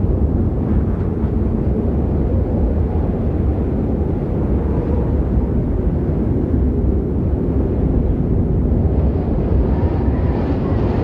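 Snowstorm wind sound effect: a steady, deep rush of wind noise that swells slightly brighter near the end.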